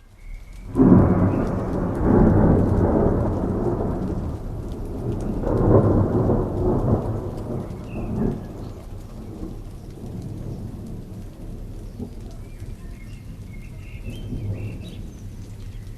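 Thunder rolling over steady rain: a loud rumble breaks in about a second in, swells again around six seconds, then dies away, leaving the even hiss of rainfall.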